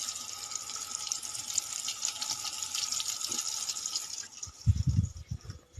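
Steady hiss of running water, like a tap left on, which stops about four seconds in. A few short, low thuds follow near the end.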